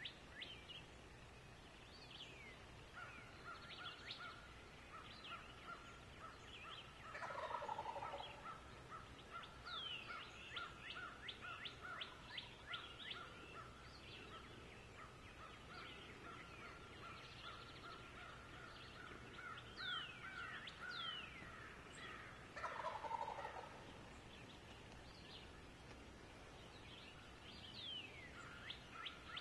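Wild turkey gobblers gobbling twice, about fifteen seconds apart. Small birds chirp throughout, and a long steady high trill runs through most of the middle.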